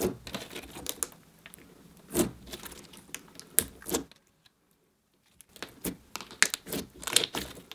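Clear putty-textured slime being stretched, squeezed and pressed by hand, giving irregular sticky clicks and crackles, with a brief quiet pause a little past halfway.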